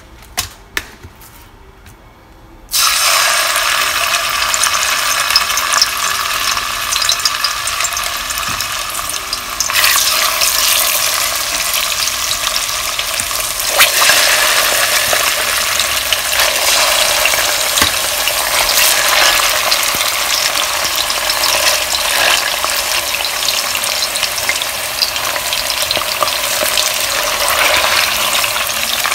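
Jerk-seasoned blue jackfish steaks deep frying in hot oil in a pot: a dense, loud sizzle that starts suddenly about three seconds in as the fish goes into the oil, growing louder again around ten seconds in. A couple of faint clicks come before it.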